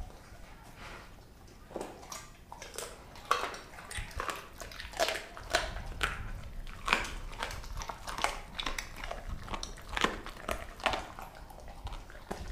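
A Doberman chewing raw chicken legs and feet, some of the meat still partly frozen, with a run of irregular sharp bone crunches. The crunches are sparse at first and come thick and fast from about two seconds in.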